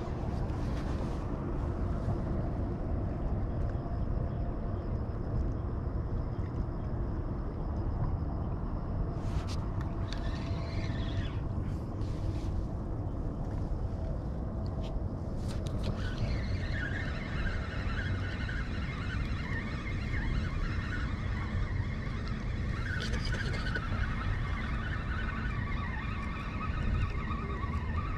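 Wind buffeting the microphone: a steady low rumble with no letup. Faint wavering higher tones join about halfway through.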